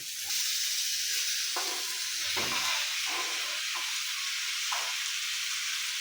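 Chopped onions and garlic frying in a pan with a little oil: a steady sizzle that jumps louder about a third of a second in and then holds.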